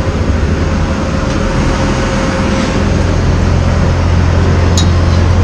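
Loud, steady low drone of aircraft machinery on an airport apron, with a thin whine that fades out about halfway through and a light click near the end.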